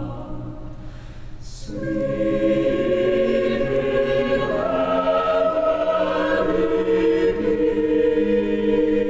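A choir singing held chords with a small Baroque orchestra. It starts soft, then after a short hiss the voices come in loud about two seconds in, and the chord grows fuller a few seconds later.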